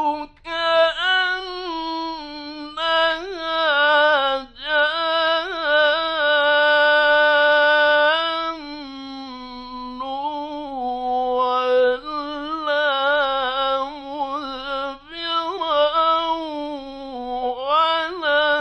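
A man reciting the Quran in the melodic mujawwad style. He draws out long melismatic phrases whose pitch wavers up and down, holding one long steady note near the middle with only short breaths between phrases.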